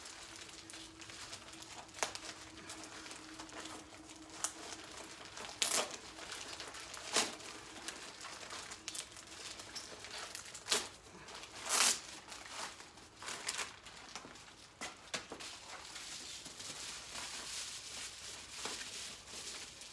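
Packaging being unwrapped by hand: plastic and paper crinkling and rustling in scattered bursts, with a few louder sharp crackles. A faint steady hum sits under the first few seconds.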